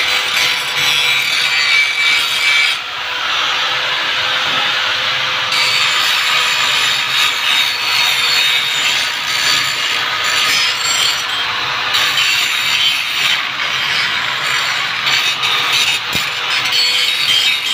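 Angle grinder running with its disc pressed against a metal frame: a steady motor whine under a continuous harsh scraping hiss. The top of the hiss eases for a couple of seconds about three seconds in.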